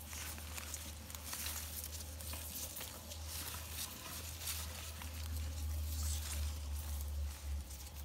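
Scratchy rustling and brushing of the phone's microphone against denim and grass stems, many short scrapes over a steady low rumble.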